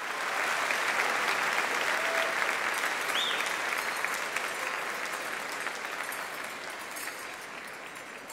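Concert audience applauding, slowly fading, with a short whistle from the crowd about three seconds in.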